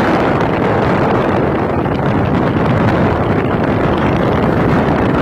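Steady wind buffeting the microphone from a moving vehicle, mixed with the vehicle's running noise.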